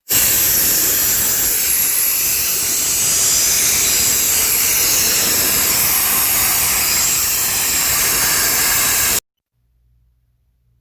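Sandblasting gun blowing abrasive sand with compressed air, a loud, steady rushing hiss that cuts off abruptly about nine seconds in.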